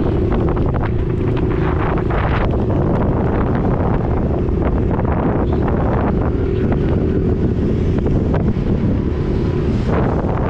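Heavy wind buffeting on the microphone, the loudest sound, with the Honda 70's small single-cylinder four-stroke engine running underneath, its note coming and going.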